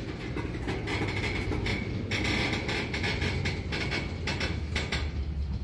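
Diesel locomotives of a slow freight train working hard at high throttle: a steady low engine drone that grows stronger near the end, under frequent clicks and rattles of the cars on the rails. The train is struggling to pull its load up the grade.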